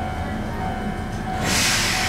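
Ohmi Railway 800 series electric train standing with a steady low hum. About a second and a half in, a sudden loud hiss of compressed air starts and slowly fades: the air brakes releasing just before the train pulls away.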